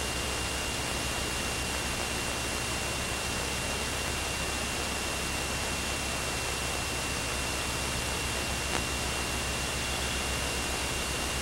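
Steady cabin noise of a Cessna 210's engine and propeller running: an even rushing hiss over a low hum, with a thin steady high whine. A single faint click about nine seconds in.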